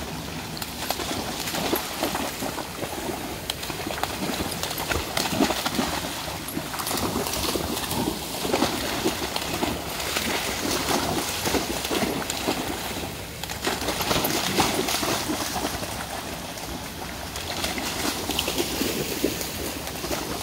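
Dogs splashing and wading through a fast-flowing, rain-swollen creek: irregular splashes of their legs in the water over the steady rush of the flowing stream.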